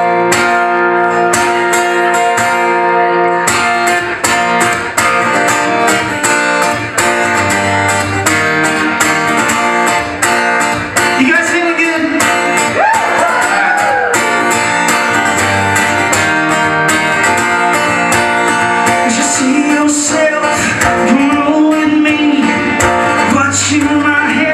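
Live song intro on a strummed acoustic guitar, steady chords with regular strokes. Wordless vocal lines rise and fall over it about halfway through and again near the end.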